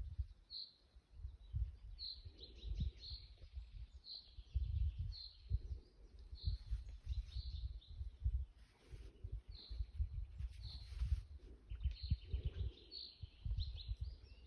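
A songbird repeating short, high chirps about once a second, over an irregular low rumbling on the microphone.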